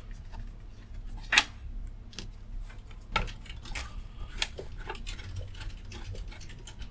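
Screwdriver working the metal mounting screws of a speaker driver's frame: scattered sharp metallic clicks and taps, the clearest about a second and a half, three seconds and four and a half seconds in.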